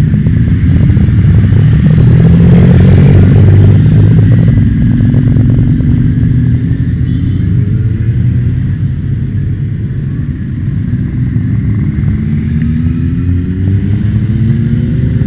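A column of motorcycles riding past one after another, their engines loudest a few seconds in as the nearest group goes by, then a steady stream of passing bikes with several engine notes rising as riders accelerate in the second half.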